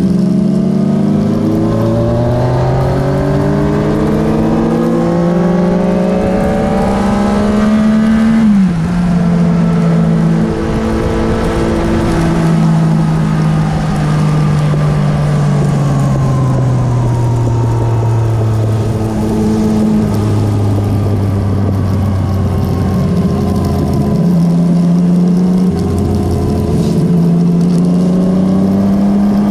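Motorcycle engine heard from on the bike, pulling up through the revs with rising pitch. About eight seconds in the pitch drops suddenly at a gear change, then it eases off with a slowly falling pitch. Further gear changes come around twenty and twenty-five seconds in.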